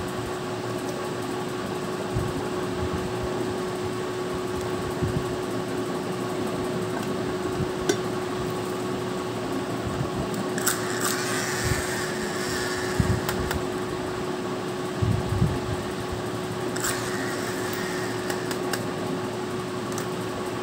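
Steady background hum with a constant tone, broken by a few light clicks, low knocks and two short stretches of crinkling as plastic candy toys and containers are handled.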